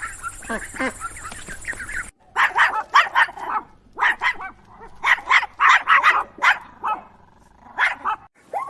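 A dog barking in quick runs of short barks, starting abruptly about two seconds in with a pause near the end; before that, fainter short calls over a steady hiss.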